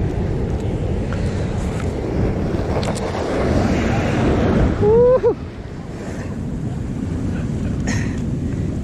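Ocean surf washing over the rocks, with wind on the microphone. The wash swells about four seconds in and falls away just after five seconds. At the peak a short pitched call rises and then falls.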